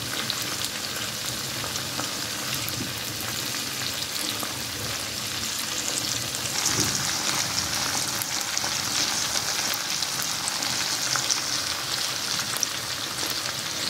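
Chicken pieces and whole tomatoes frying in hot oil in an iron karahi: a steady, dense sizzle and crackle that grows brighter and a little louder about halfway through.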